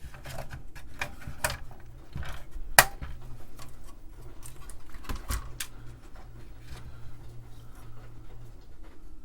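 Scattered clicks and knocks from a TRS-80 Model I motherboard and its plastic case being handled and worked loose, with the sharpest knock about three seconds in.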